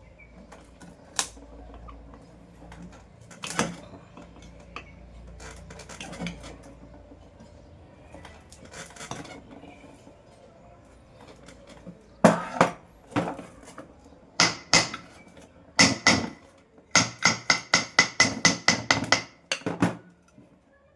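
Metal tools tapping and clinking against a ceiling fan's metal body: scattered sharp, ringing strikes, then a quick run of about a dozen taps near the end. A faint low hum sits underneath in the first half.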